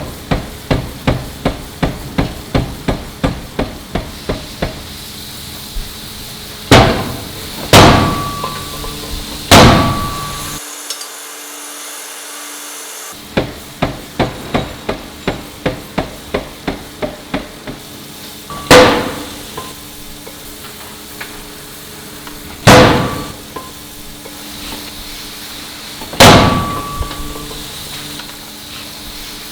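Forging machinery striking metal. Runs of quick, even hammer blows, about two to three a second, alternate with heavy single blows a few seconds apart, each leaving a short metallic ring.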